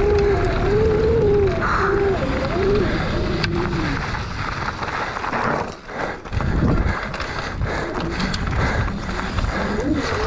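Mountain bike descending a dirt forest trail, heard from a camera on the bike: a steady rush of wind and tyre noise with the rattle and knocks of the bike over bumps and roots. Someone is shouting over the first few seconds, and the noise drops briefly about six seconds in.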